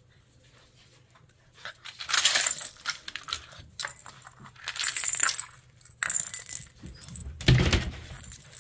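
Plastic bead-and-loop rattle toy clattering in several short bursts as a puppy mouths and knocks it about on a concrete floor, with a dull thump near the end.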